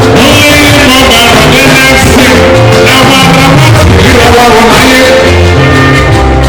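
Loud juju music played by a band, with singing over the instruments.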